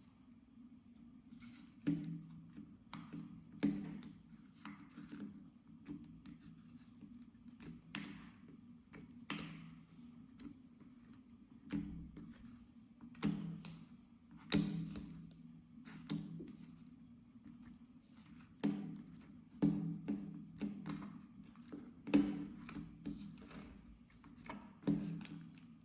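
Clear slime being squished and folded by hand, making irregular sticky clicks and pops about a dozen times, with quieter squelching between them.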